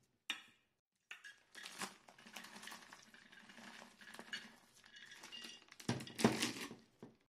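Flaked almonds sprinkled over chicken and rice in a steel pan, a light crackly pattering of many small ticks that is heaviest about six seconds in.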